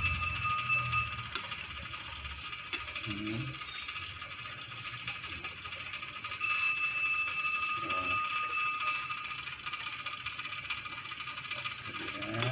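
A metal spoon clinking against a glass plate a few times as it stirs through a saucy stir-fry, over a steady high-pitched background whine.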